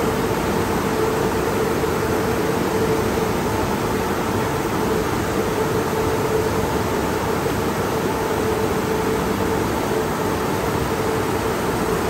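Tunnel car wash equipment running: a steady hiss of water spraying over a passing car under a constant machine hum with a mid-pitched tone.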